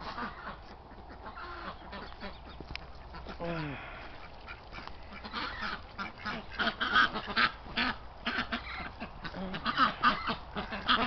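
Ducks quacking and calling, with a few pitched calls early on and a busier run of short, quick quacks that grows louder in the second half.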